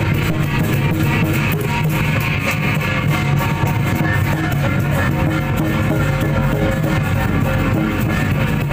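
Loud, continuous music with a steady beat.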